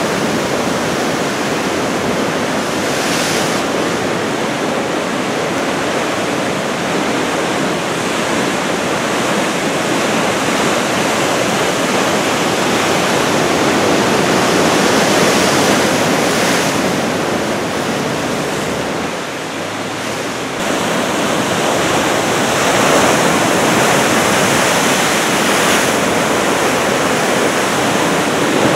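Big typhoon surf breaking continuously: a steady, dense wash of breaking waves, dipping briefly about two-thirds of the way through.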